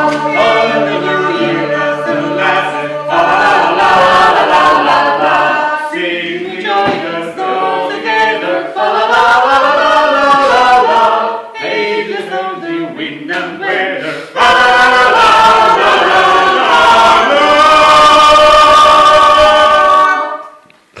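A small mixed group of men and women singing together, ending on a long held final chord that stops suddenly near the end.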